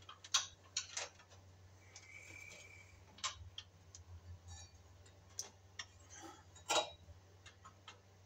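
Scattered clicks and light knocks as wires are folded back into the end wiring compartment of an electric baseboard heater and the thermostat piece is handled, with one louder knock about two-thirds of the way in. A faint low hum runs underneath.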